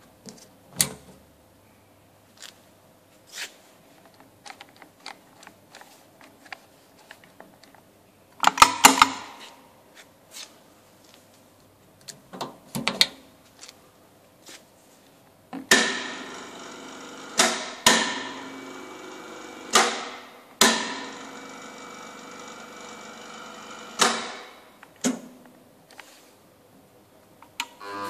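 Clicks and knocks of buttons, switches and a cable pendant being handled at a welding positioner's control panel, with a loud cluster of knocks about a third of the way in. In the second half a steady machine hum runs for several seconds, broken by a handful of sharp clunks.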